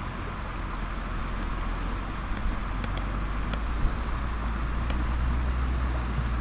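Shallow gravel-bottomed stream flowing: a steady rushing with a deep rumble underneath, and a few faint ticks around the middle.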